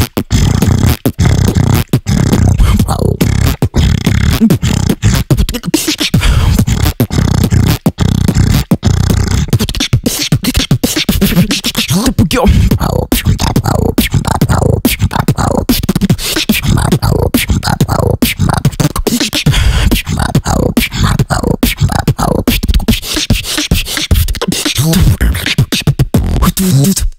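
Human beatboxing: a continuous solo routine performed close on a microphone, with heavy bass and a rapid run of sharp percussive hits, stopping abruptly near the end.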